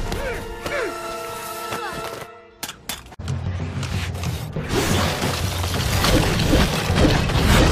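Animated-film soundtrack: orchestral score with held notes, dropping out briefly a little before halfway, then a dense crackling, shattering hiss of an ice beam over action music and a low rumble.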